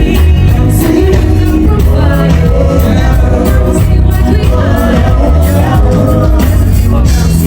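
Loud amplified music with a sung vocal over heavy, steady bass, played through a PA system during a sound check.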